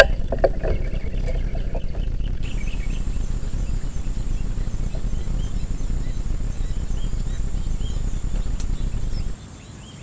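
Steady low rumble that cuts off suddenly near the end, with a few light handling clicks in the first two seconds. From about two and a half seconds in, a steady high insect drone and faint bird chirps sit above it.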